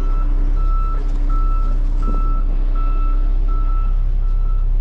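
Semi truck's backup alarm beeping steadily, about three beeps every two seconds, over the diesel engine's low steady running as the tractor-trailer reverses.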